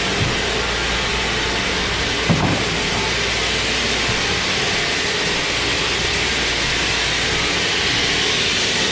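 Sawmill machinery running steadily with a loud, even noise, and a single knock about two seconds in.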